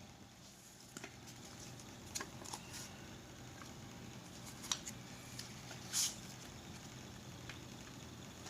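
Light clicks and short rustles of small keyboard parts being handled, coming irregularly a second or more apart, the loudest a brief rustle about six seconds in, over a steady low hum.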